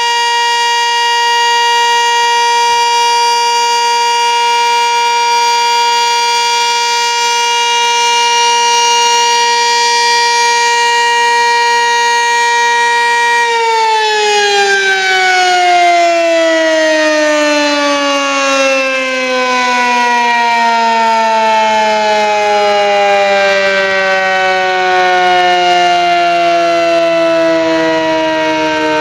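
Sentry 15V2T two-tone outdoor warning siren sounding a steady chord. About halfway through, the power cuts and the pitch glides slowly down as the rotor winds down, marking the end of its one-minute steady test.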